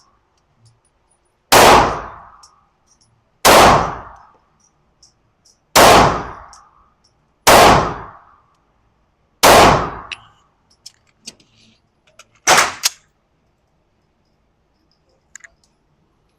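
Handgun, a Smith & Wesson M&P 2.0, fired six times at an even pace about two seconds apart, each shot ringing out and fading over about a second.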